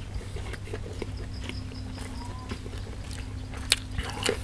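Mouth sounds of a man eating beef larb by hand: chewing with scattered wet clicks and smacks, two stronger ones near the end, over a steady low hum.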